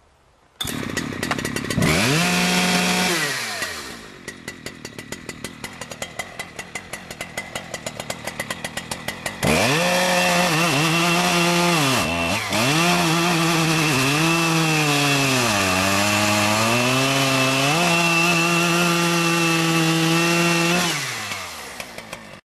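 Husqvarna 3120XP two-stroke chainsaw starting, revving briefly and settling to a pulsing idle, then at about ten seconds opening to full throttle and cutting through a 350 mm log. Its pitch dips several times as the chain bogs under load in the wood, then the throttle is released near the end and the sound cuts off.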